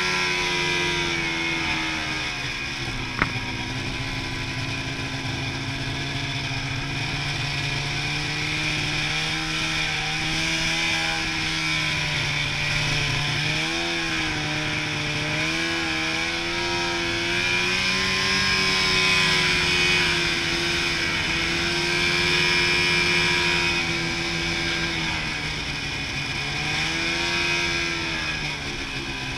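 Snowmobile engine running as the sled travels along the trail, its pitch dropping and climbing again several times with the throttle, over a steady hiss. A single sharp click comes about three seconds in.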